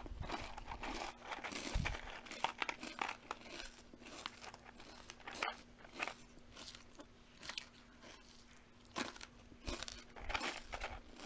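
Close-up crunching and chewing of something crisp, in irregular crackling clusters that thin out for a couple of seconds past the middle before picking up again.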